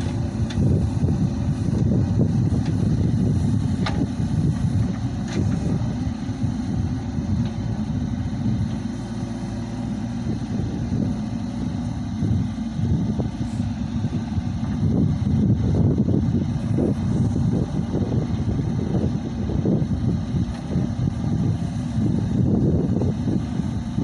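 Heavy diesel engine of earthmoving machinery running steadily, a low rumble with a few faint ticks.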